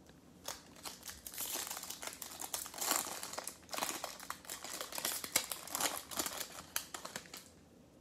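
Foil wrapper of a Topps Chrome baseball card pack being torn open and crumpled by hand: a run of sharp crackles that starts about half a second in and stops shortly before the end.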